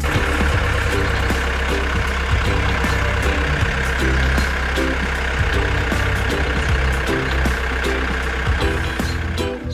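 Tractor engine running steadily, a heavy low drone with a steady higher hum above it. It cuts in abruptly and stops near the end.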